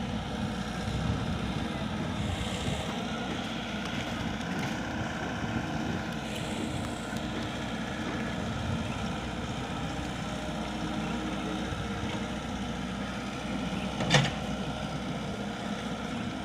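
Komatsu PC78 mini excavator's diesel engine running steadily, with a single sharp knock about fourteen seconds in.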